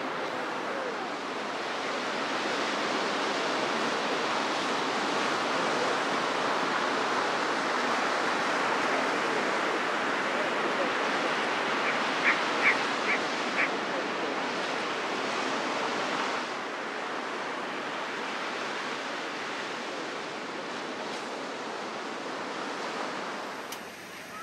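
Ocean surf washing onto a beach: a steady rushing of waves that swells and eases. About halfway through, four short high notes sound in quick succession.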